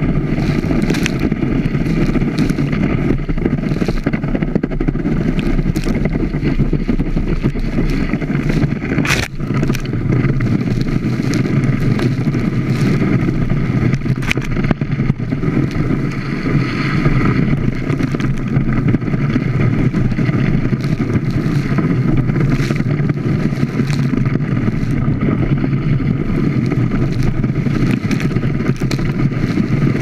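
Water rushing and spraying over a wakeboard-mounted camera as the board skims along behind a towboat, with the boat's engine running steadily underneath. Short splashes hit the camera now and then, a sharp one about nine seconds in.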